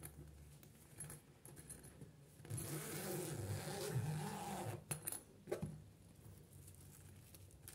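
Handling of a fabric pop-up pet playpen: small metallic clicks of its zipper pull, and a longer rough stretch of zipper and fabric noise in the middle.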